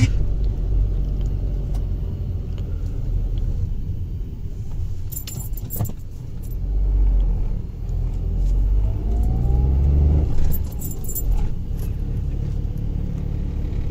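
Tata Altroz's three-cylinder petrol engine, on freshly fitted NGK iridium spark plugs, running as the car is driven: a steady low engine and road rumble. A few short jingling rattles come about five seconds in and again around ten to eleven seconds in.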